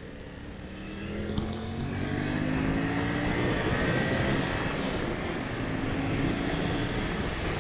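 Yamaha Tracer 700's parallel-twin engine accelerating up a mountain road. It gets louder and rises in pitch over the first few seconds, then runs steadily, with wind rushing over the microphone.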